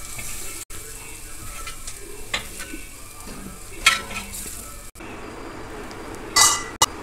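Onion-chilli chutney in coconut oil still sizzling in a hot brass pan after the gas is turned off, while a spoon scrapes it out with sharp clicks against the metal, one loud near four seconds in. After a cut, a steady sizzle from the dosa pan and a brief scrape near the end.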